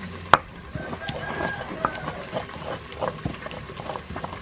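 A rooster crowing for about a second, starting near the first second. Under it, the stone pestle of a molcajete knocks and grinds against the stone bowl, with one sharp knock just before the crow.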